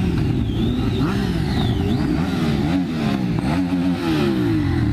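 A column of motorcycles riding past one after another, many engines revving up and down over each other.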